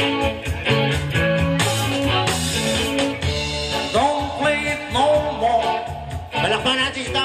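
Live band music, a song with a steady beat, bass and guitar; a singing voice joins about four seconds in.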